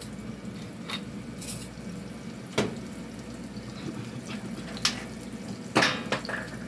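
Onions and garlic frying in oil in a pan make a steady low sizzle. Over it come a few short, sharp clicks and knocks as seasoning jars and a spatula are handled, the loudest near the end.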